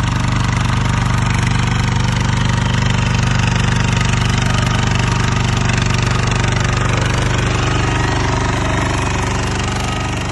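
Kubota power tiller's single-cylinder diesel engine running steadily with an even, rapid chugging.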